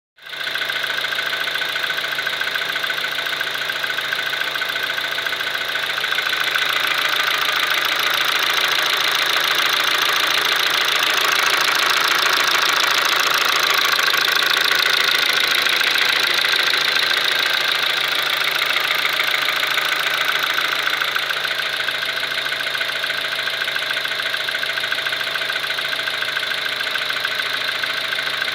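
Kia Ceed's G4FG 1.6-litre four-cylinder petrol engine running, most likely at idle, with a fast, even metallic knock that the owner takes for piston knock. It grows a little louder about six seconds in and eases back after about twenty seconds.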